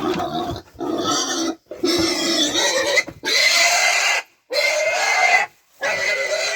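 Young pig squealing loudly while being caught and handled for bagging: a run of about five long, high squeals, each about a second long, with short breaks for breath.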